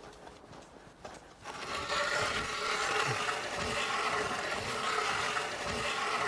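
Ice auger boring into thick river ice: a steady grinding and scraping that starts about a second and a half in, with a few low knocks.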